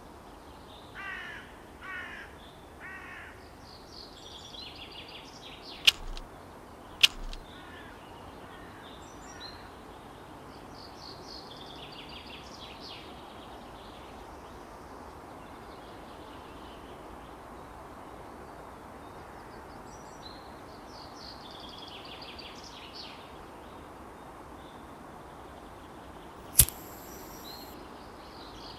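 Birds calling and chirping against a steady outdoor background, with three harsh calls about a second in. A lighter clicks sharply twice, about six and seven seconds in, and once more near the end with a short hiss as the cigarette is lit.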